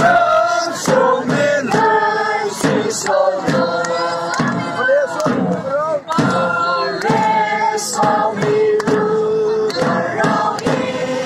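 A crowd of people singing and chanting together, several voices holding and bending notes in unison, with sharp hits now and then.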